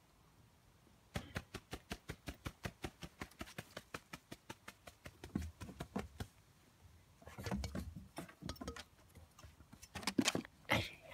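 Puppies' paws and claws pattering on wooden decking: a fast, even run of light clicks for about five seconds, then a few scuffling bursts later on.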